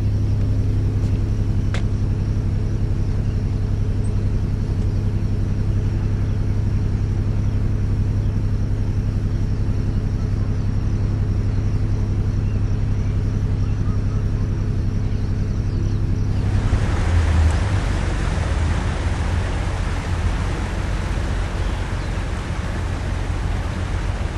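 A boat's engine running with a steady low drone. About 16 seconds in, the sound changes suddenly to a broad rushing noise over a low rumble.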